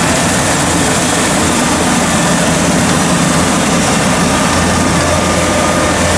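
Kubota DC-93 Extra rice combine harvester running steadily under load as it cuts and threshes rice close by: a loud diesel engine hum with the rush of its cutting and threshing machinery.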